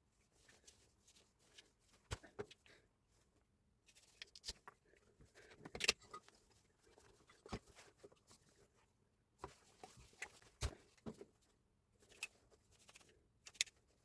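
Scattered light clicks and knocks at irregular intervals, typical of tool parts and hand tools being picked up and set down during a repair. The loudest come about six seconds in and again about ten and a half seconds in.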